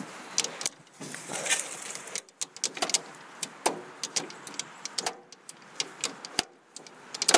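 Irregular metallic clicks and clunks from a 1955 Ferguson TO35 tractor's control levers being worked by hand, with the engine not running.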